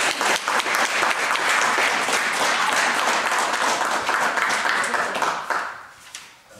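Small audience applauding, a dense patter of many hands clapping that dies away about six seconds in.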